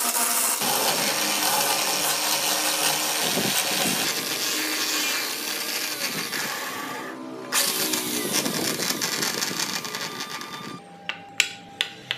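Electric hand drill rigged as a lathe, running and spinning a wooden wheel while a hand tool scrapes and cuts the turning wood, with a brief break about seven seconds in. It stops before the end, and two light knocks follow as the wooden wheels are set on the bench.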